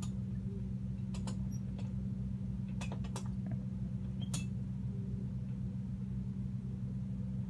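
Boat's engine droning steadily, with a few sharp clicks and creaks about a second in and again around three and four seconds in.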